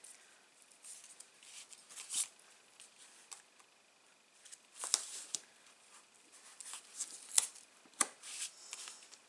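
Card stock and double-sided adhesive tape being handled: scattered scratchy rustles, peels and rubs of paper, with several sharper crackles spread through.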